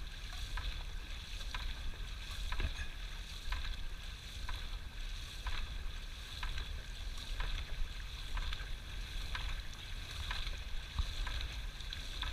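A dragon boat crew paddling in unison: the paddles catch and splash the water together about once a second, over a steady rumble of wind on the microphone.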